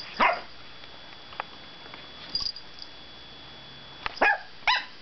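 A dog making short whining yelps: one that falls in pitch just after the start, then two more close together near the end.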